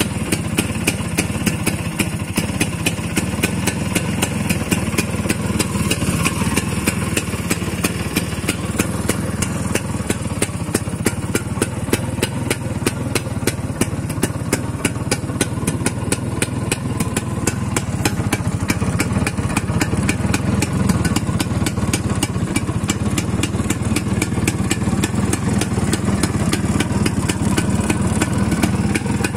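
Vespa PX scooter's single-cylinder two-stroke engine idling steadily, with an even, fast beat.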